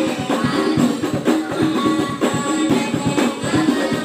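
A group of rebana frame drums played together in a quick, dense rhythm, with a boy's voice singing through a microphone over the drumming.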